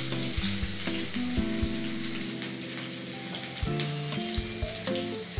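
Chopped onion frying in hot mustard oil in an aluminium kadai, sizzling steadily.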